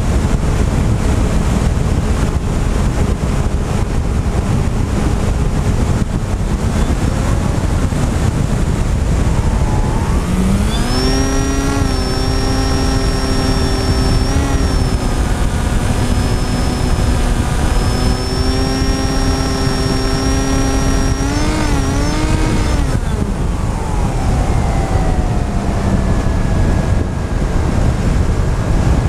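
Wind rushing over the onboard camera of an FPV model aircraft in flight. About ten seconds in, its motor and propeller throttle up to a steady hum that rises in pitch, holds for about twelve seconds with a few brief wobbles, then winds back down.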